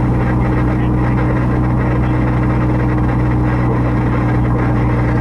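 Steady low drone of a car in motion heard from inside the cabin: engine and road noise with an even hum.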